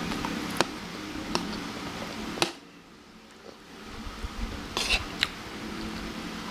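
Cutlery clinking and tapping against a plate, about five sharp clicks, over a steady background hiss that briefly drops away near the middle.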